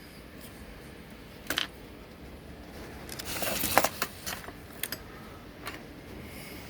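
Scattered light clicks and knocks from objects being handled, with a longer rustling scrape about three and a half seconds in.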